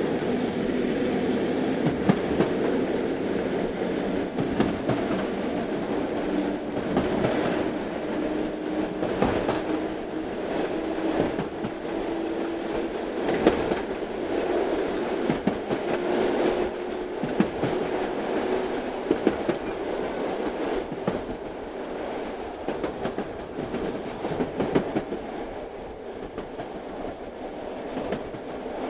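Battery-operated toy steam locomotive running around a round plastic track: its small electric motor whirs steadily with a low hum that creeps slightly up in pitch, and the plastic wheels click and rattle over the track.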